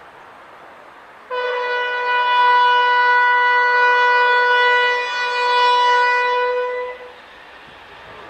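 Diesel locomotive's horn sounding one long, loud blast of about six seconds as the train approaches, dipping briefly about two-thirds of the way through.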